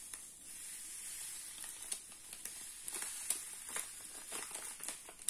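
Faint crinkling of a paper sachet and scattered small ticks as citric acid powder is tipped from it onto a metal spoon, over a steady high hiss.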